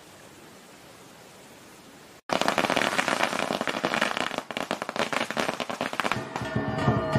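A string of firecrackers going off in a dense, rapid crackle that starts suddenly about two seconds in, after a faint steady hiss. Near the end, ringing gong tones and drumbeats join the crackle.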